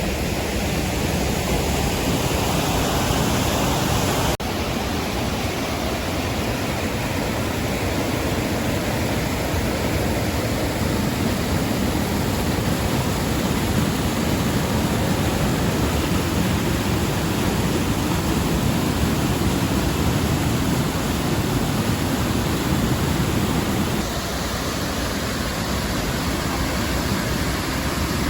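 Monsoon-swollen stream rushing over rocks: a steady, loud wash of flowing water, briefly dipping about four seconds in and dropping a little in level near the end.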